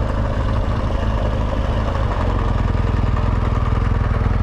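BMW GS Adventure motorcycle engine running steadily at low revs as the bike rolls off.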